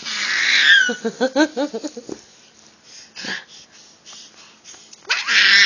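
Baby's breathy, wheezy squeal, then about a second in a quick run of short huffing giggles, about seven a second. Mostly quiet after that, until another loud breathy squeal near the end.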